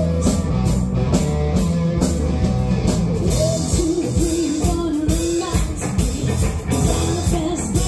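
Live rock band playing: electric guitar and bass held notes over a drum kit keeping a steady beat.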